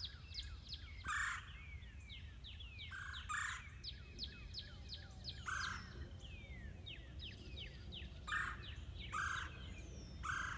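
Wild birds singing: a rapid series of high, quick, falling chirps, broken about every one to three seconds by short harsh calls.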